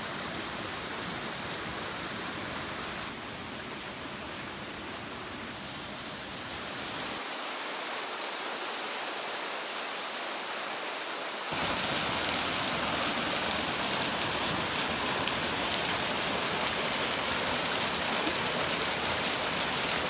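Small waterfall cascading over rocks: a steady rush of falling water, louder from a little past halfway.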